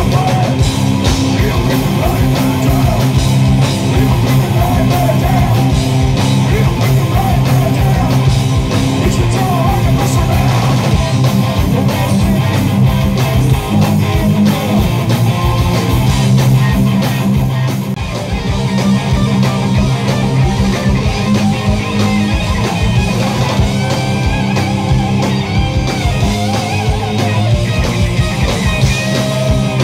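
Rock band playing live and loud: electric guitars through Marshall amplifiers, bass guitar and a drum kit.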